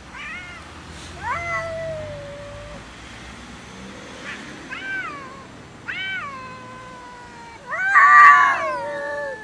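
Domestic cats meowing and yowling in a squabble over food: about five drawn-out calls that rise and then fall in pitch, the last and loudest a harsh yowl near the end.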